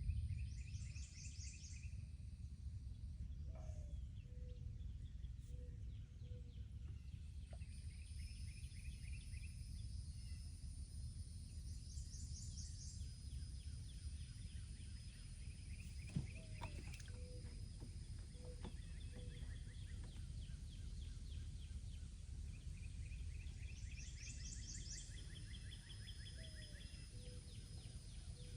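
Outdoor ambience: steady high-pitched insect buzzing with rapid trills coming and going every few seconds, over a low rumble. A short series of low, evenly spaced call notes repeats three times.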